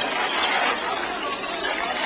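Busy street din of a crowd: many indistinct voices chattering together, with no single voice standing out.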